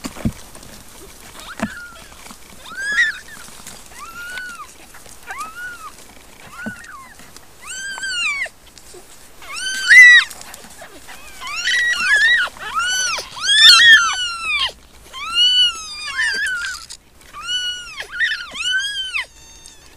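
Two-week-old Siamese kittens mewing: short, high-pitched cries that rise and fall, about one a second. From about eight seconds in they come louder and more often, and several kittens cry over one another.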